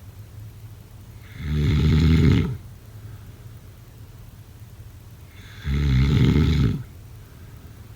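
A person snoring in sleep: two loud snores, each about a second long and about four seconds apart, with much quieter stretches between.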